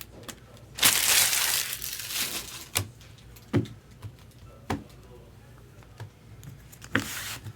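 Packaging crinkling loudly for about two seconds, then several sharp clicks as cards are handled, with a short rustle near the end.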